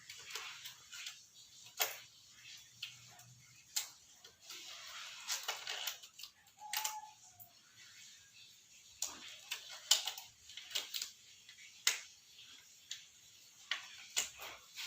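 Objects being handled: irregular sharp clicks and taps with soft rustling, and a short high tone about seven seconds in.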